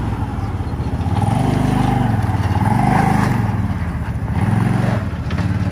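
Massimo MXU 1000 UTV's 1000cc two-cylinder four-stroke engine pulling away under throttle, its note rising and falling in about three swells as it accelerates and eases off.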